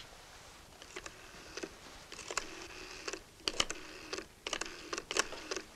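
Rotary telephone being dialled: a run of light, irregular clicks and rattles from the dial and handset.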